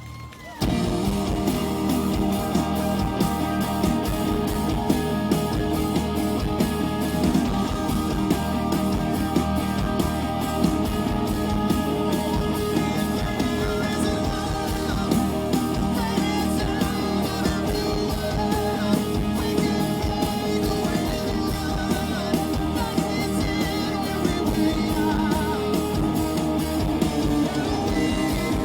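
Live rock band playing loud, led by electric guitar over a steady drum beat; the full band comes in about half a second in after a brief quiet moment.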